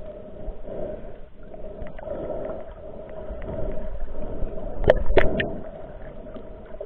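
Muffled underwater ambience heard through a camera housing: water moving, with a steady low drone throughout. A few sharp clicks or knocks come about five seconds in.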